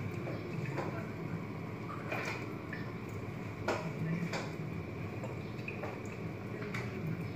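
A spoon stirring a thick cream-and-cheese white sauce in a nonstick pan, with irregular scrapes and light knocks of the spoon against the pan over a steady background hum. The sauce is being stirred until the cheese melts and no lumps remain.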